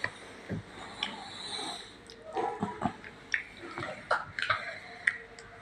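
Scattered light clicks and knocks, about a dozen spread over a few seconds, some with a short ringing tone.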